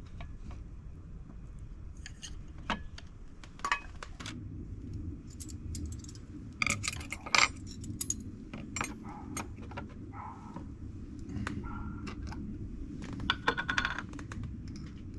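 Irregular clinks and light clatter of small hard objects, some with a brief ring, over a steady low background rumble.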